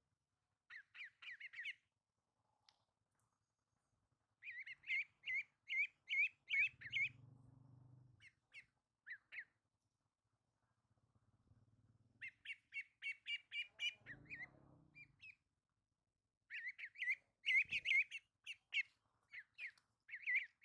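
Ducklings peeping: runs of short, high, rapid peeps at about four a second, in several bursts with pauses between.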